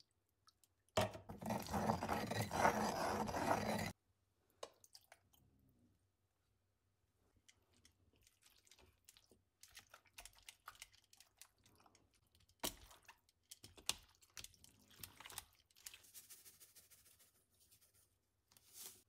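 A stone pestle grinding and scraping in a molcajete for about three seconds. This is followed, from about eight seconds in, by faint clicks and rustles as raw chicken pieces are handled with tongs and a seasoning shaker.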